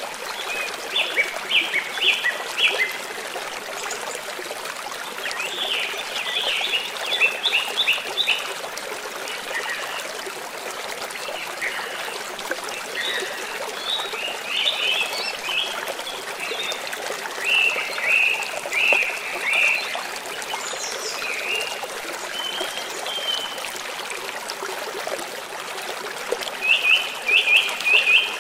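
Stream water trickling and running steadily, with birds chirping over it in quick runs of short notes that come every few seconds.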